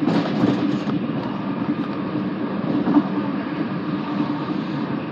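Steady running noise of a passenger train heard from inside the carriage at speed: a rumble with a faint steady hum. A brief louder rush of hiss comes in the first second.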